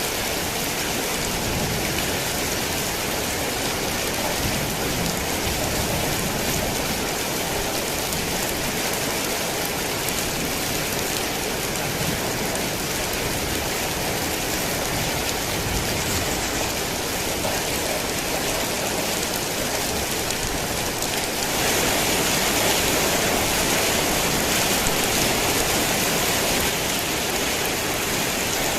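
Heavy rain falling steadily, a dense even hiss of rain on surfaces, swelling a little louder about three quarters of the way through.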